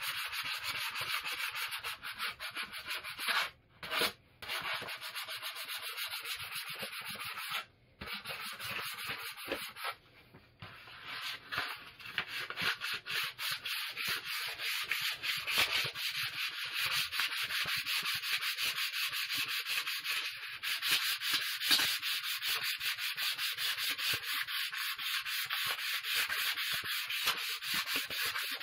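Sandpaper rubbed by hand along a new wooden axe handle in quick back-and-forth strokes, stopping briefly a few times in the first ten seconds or so.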